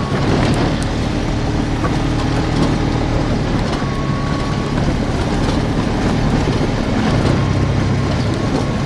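Polaris RZR side-by-side's engine running under way, a steady drone over rattling and road noise, with the engine note shifting about seven seconds in.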